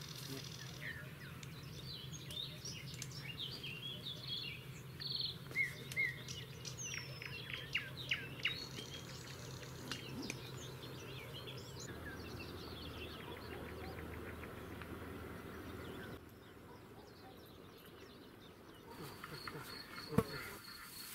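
Small birds chirping and singing, a busy run of short high calls through the first half that thins out later. Near the end a steady high insect trill, like a cricket, sets in, with one short knock just before the end.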